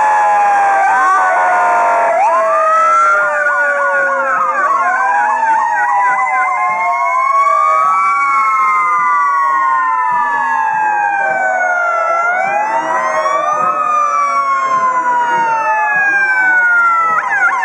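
Several fire truck sirens sounding at once, their slow wails rising and falling over each other, mixed with rapid yelping warbles.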